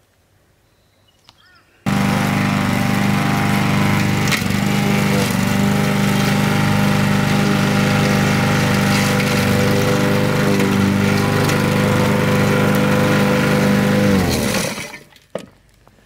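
Honda walk-behind lawn mower's four-stroke engine running steadily while mowing. It starts abruptly about two seconds in and winds down, its pitch dropping, near the end.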